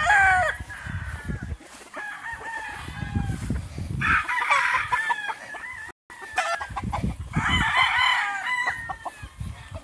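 Several gamefowl roosters crowing, one after another and overlapping, with the loudest crows about four and seven seconds in.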